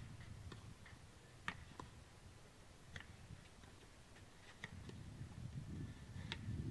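Quiet outdoor ambience: a low rumble with about six faint, sharp ticks at irregular intervals.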